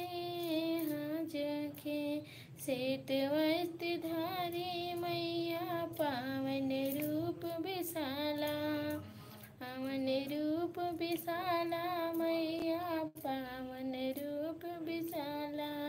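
A woman singing solo, holding long, wavering notes in phrases with short breaks between them.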